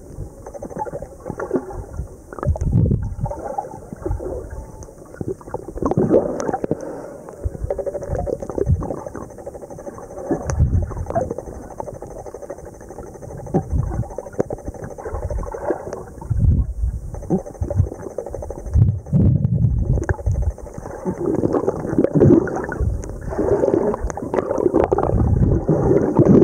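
Muffled underwater rumbling and gurgling with irregular knocks and bumps: water moving around a camera held underwater, and the camera being handled.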